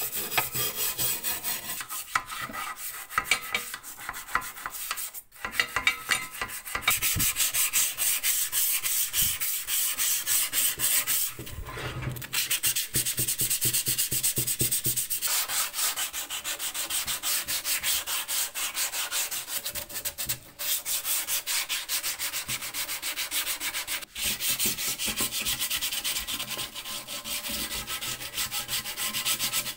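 Hand-held abrasive scrubbing on the painted metal of an old cast post box, quick back-and-forth strokes, several a second, working over the old black paint, with a few short pauses.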